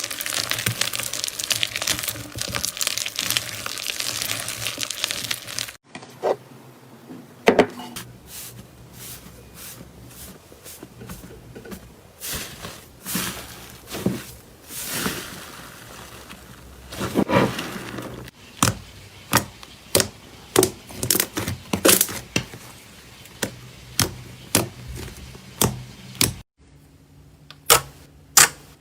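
Slime being squeezed and pressed: a dense crackling for about the first six seconds, then separate sharp pops and clicks, which settle into about one a second in the second half and come faster near the end.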